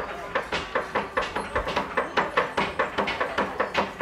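Two cleavers chopping soft candy on a wooden board for tontoko-ame: a fast, rhythmic run of knife knocks, about four to five a second. The two choppers' strokes interlock like a polyrhythm.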